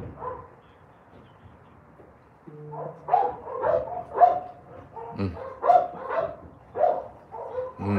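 Dog barking in a run of short, high-pitched barks, about two a second, starting about three seconds in.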